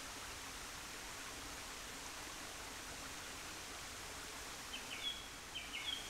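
Faint, steady rushing of small river waterfalls cascading down rock steps. Near the end a bird adds a few short, high chirps.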